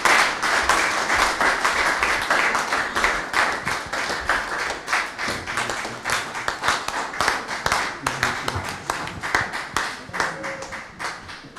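Congregation applauding, many hands clapping at once, dying away near the end.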